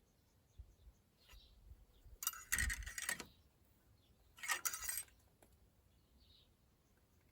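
Clinking and rattling of handled metal objects in two short bursts, about two seconds apart.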